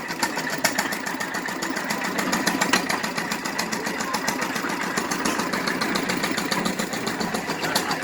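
Engine of an old hay baler running steadily with a fast, even beat.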